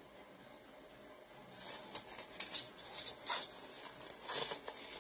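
Irregular small scrapes and light taps of resin cups and mixing tools being handled, starting about two seconds in.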